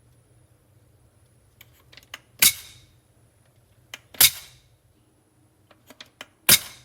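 Three loud, sharp knocks of hard objects, each ringing briefly, with lighter clicks and taps between them.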